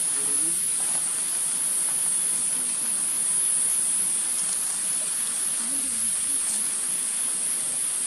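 Insect chorus in forest: a steady, high-pitched continuous buzz, like cicadas droning, with faint background rustle beneath it.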